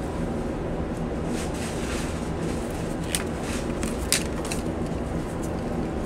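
A few sharp metallic clicks of pliers or wire strippers working on the wire ends for a refrigerator compressor's hard-start kit, the clearest about three and four seconds in. Under them runs a steady low machine hum.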